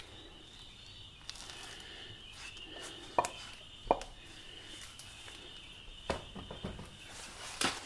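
A few light knocks and clinks, four spread over several seconds, as a motorcycle rear wheel is lifted out of the swing arm and handled.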